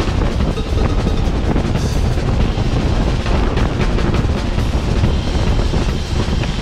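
Wind rumble on the microphone and road rattle from a racing bicycle at speed: a loud, steady, dense noise full of quick knocks and clatter.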